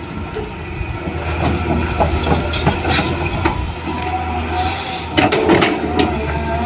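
Small electric motors of a toy RC excavator running steadily, with irregular clicks and scraping throughout.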